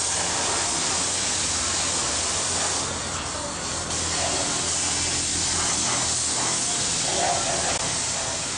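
Compressed-air paint spray gun hissing steadily as it sprays paint onto a vehicle's ladder chassis, easing off briefly about three seconds in.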